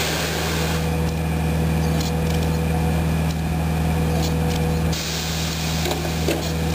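Irisbus Cristalis trolleybus standing under the overhead wires as its trolley poles go up: a steady low hum of the bus, with hissing bursts near the start and about five seconds in and a faint steady whine between them.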